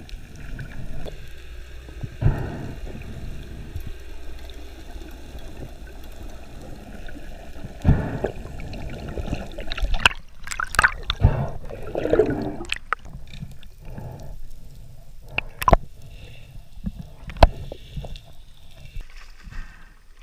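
Water gurgling, heard underwater, with scattered sharp clicks and knocks; the loudest click comes a few seconds before the end.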